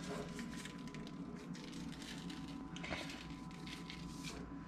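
Seasoning being shaken from a shaker bottle onto raw meat on a plastic cutting board: soft pattering and handling, with a few light taps.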